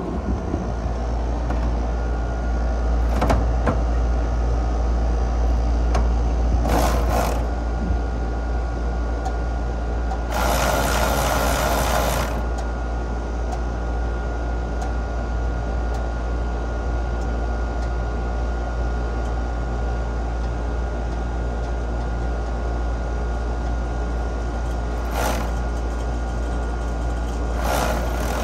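Outdoor air-conditioning condenser unit running with a steady low hum during a refrigerant pump-down: the compressor is pulling the system's refrigerant into the condenser, and suction pressure is dropping toward vacuum. A few brief bursts of noise sound over it.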